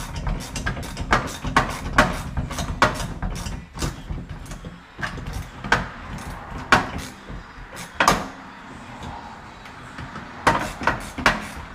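Irregular clicks and knocks of hand tools and metal parts as a pop-up headlight motor is unbolted from its headlight assembly, ending in a quick run of clicks.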